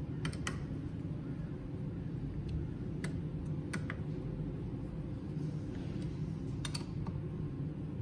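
Light metallic clicks of a hex driver turning socket cap screws into an aluminium gearbox plate, a few at a time in pairs, over a steady low hum.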